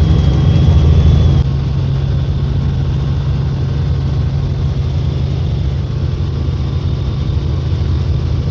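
Helicopter running: a steady low engine and rotor drone with a high whine over it. The whine cuts off about a second and a half in, and the whole sound becomes a little quieter.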